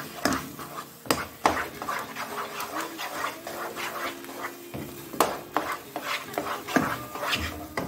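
A wooden spatula stirring and slapping thick moong dal halwa in a non-stick pan: irregular scraping and knocking against the pan, with several sharper knocks.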